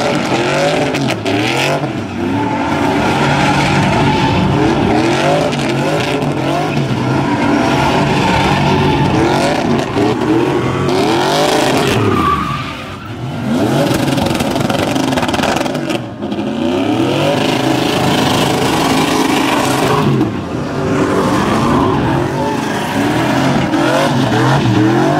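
Pickup truck engines revving hard while drifting, their pitch rising and falling again and again over a steady squeal of sliding tires, with a brief lull about halfway.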